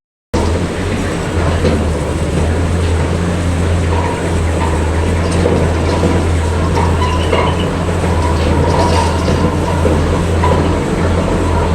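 Heavy construction machinery of a pile-drilling rig running steadily: a deep, continuous drone with scattered metallic clanks, cutting in after a moment of silence.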